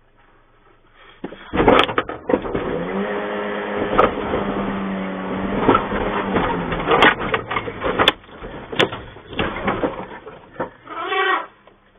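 Loud crashes and crunching metal as a charging African elephant rams and crushes a vehicle's bonnet: a hard first impact, then several more sharp knocks over the next seconds. A steady pitched note holds for several seconds in the middle, and a short pitched call comes near the end.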